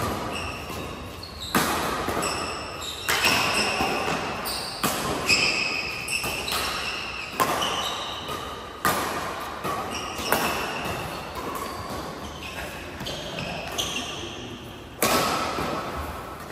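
Badminton rackets smacking a shuttlecock back and forth in a doubles rally, a sharp crack roughly every one and a half seconds, with a longer gap before a last hard hit near the end. Shoes squeak briefly on the court floor between shots, and each hit echoes in the hall.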